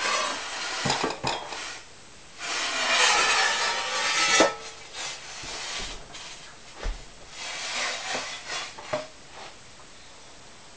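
Fired ceramic pieces and kiln shelves clinking, knocking and scraping against each other as they are lifted out and set down. There is a longer scrape about two seconds in, ending in a sharp knock, then a few lighter clinks that die away near the end.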